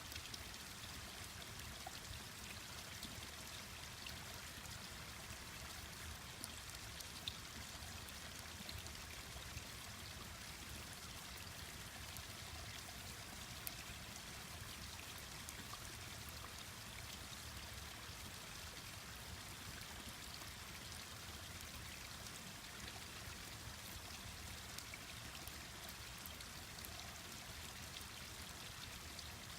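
Mountain stream rushing steadily over rocks, with a few sharp crackles from a wood campfire now and then.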